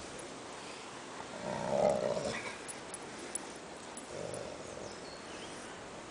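Alaskan malamute making a low grumbling growl twice: a longer, louder one about a second and a half in and a shorter, quieter one about four seconds in.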